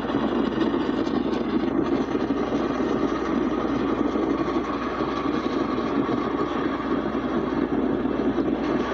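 Steady rumbling and rushing noise of vehicles in motion, a road vehicle pacing a steam-hauled passenger train, with no distinct exhaust beat or whistle standing out. It is muffled, as if replayed through a television speaker.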